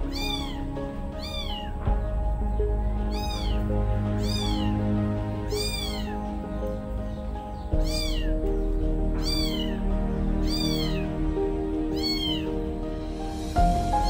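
A kitten meowing over and over, short high-pitched calls about once a second, over background music with long held tones.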